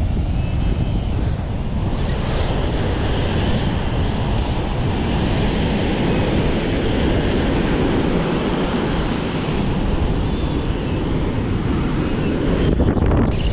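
Ocean surf breaking and washing up a sandy beach, with wind buffeting the microphone as a steady low rumble.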